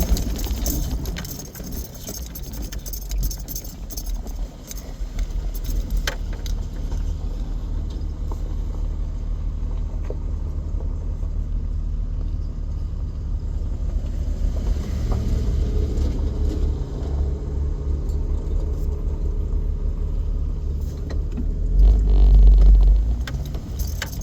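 Vehicle driving slowly over a rough, bumpy dirt track: a steady low engine and road rumble with loose rattles and clicks, and a louder low rumble about 22 seconds in.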